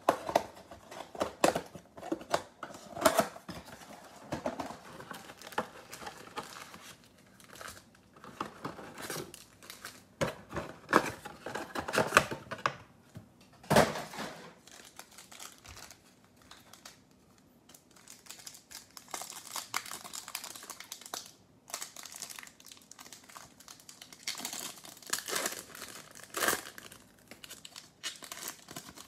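Trading-card packaging being crinkled and torn: a cardboard card box opened and its stack of foil-wrapped packs handled, then a foil card pack crinkled and torn open near the end. Irregular crackles and clicks, busiest in the first half.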